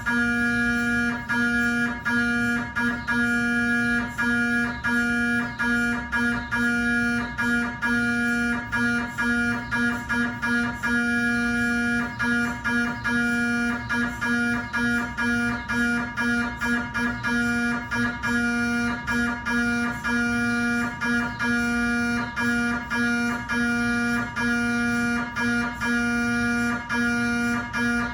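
GE 3T Twinspeed MRI scanner's gradient coils sounding a steady, buzzing pitched tone with overtones during a cardiac scan sequence, chopped into quick, slightly uneven pulses several times a second.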